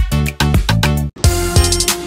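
Background music with a steady beat and bass; it drops out for a split second about a second in and comes back in a new section.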